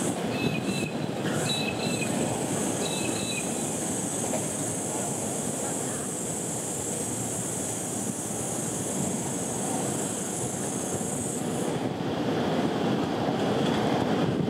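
Outdoor city ambience: a steady rumble of traffic and wind. Short bird chirps come in the first few seconds. A thin high-pitched buzz holds steady for about ten seconds and then cuts off suddenly.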